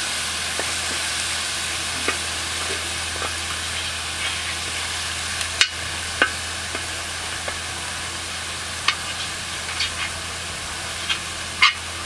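Pork neck pieces sizzling in their fat and juices on a hot flat iron griddle, a steady high hiss with scattered sharp pops and clicks.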